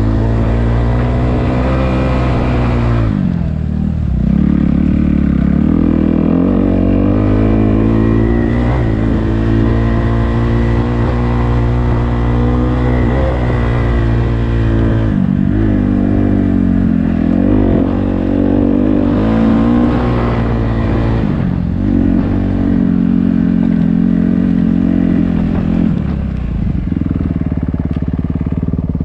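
Dirt bike engine running under riding load, its pitch rising and falling as the throttle is rolled on and off, with drops around 4, 15, 21 and 26 seconds in. Near the end the note steadies.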